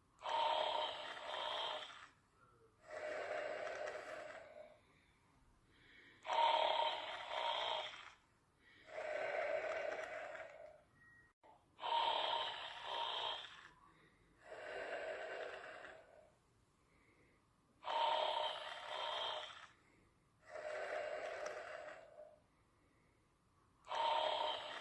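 A sleeper snoring in a slow, regular rhythm, one breath cycle about every six seconds. Each loud snore is followed a second or so later by a softer breath.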